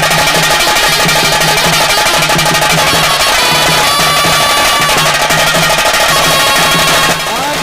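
Taase drums beaten fast with sticks in a dense, rolling pili nalike (tiger dance) rhythm, loud throughout. A low steady tone pulses on and off beneath the drumming. The sound drops a little near the end.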